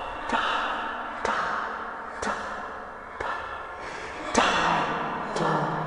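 Horror sound effect: a string of sharp hits about once a second, each trailing off in a hissing rush.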